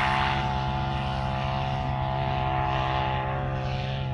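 Off-road vehicle engine running at a steady idle close by. Its pitch sags and it stops right at the end.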